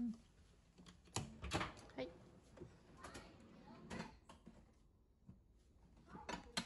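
A built-in drawer dishwasher being pulled open, with a scattering of quiet clicks, knocks and clatters from the sliding drawer and the plastic cups and bowls in its rack.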